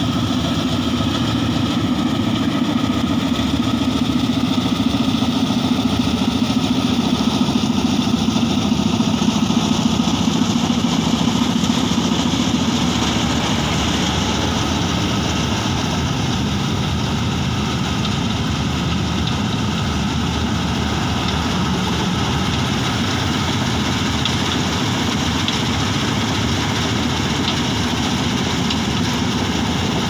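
Jai Bharat 730 combine harvester's diesel engine and threshing machinery running steadily under load while it cuts paddy, a little louder for several seconds in the first half.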